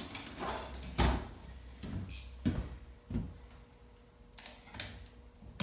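Knocks and metallic clinks of tools and chainsaw parts being handled on a workbench, about half a dozen separate hits with brief high ringing on a couple of them.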